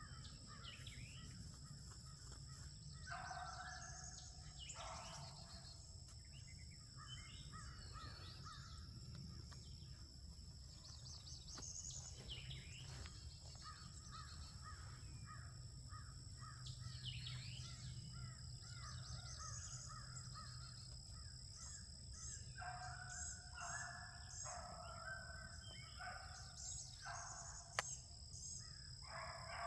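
Pack of beagles giving tongue while running a rabbit: faint bouts of repeated barks and bays, heaviest at about three seconds in, again around twenty-two to twenty-six seconds and near the end, with scattered lighter chop mouth between.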